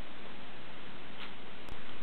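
Layers of black board being peeled up by hand: small clicks of the tearing board over a steady hiss, with a sharper click near the end.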